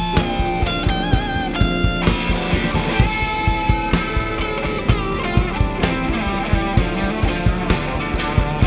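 Live blues-rock band playing: an electric guitar lead with bent, wavering notes over electric guitar, bass and a steady drum beat.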